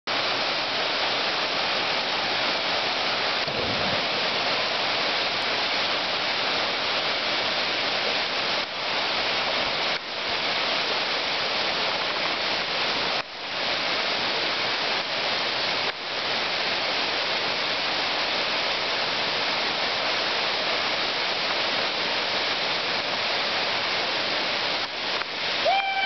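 Waterfall pouring into a rock pool: a steady rush of falling water. Near the end a person gives a short high-pitched shout.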